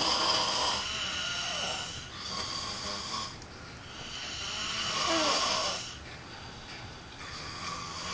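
Two sleeping men snoring, one long snore after another, about four snores in all.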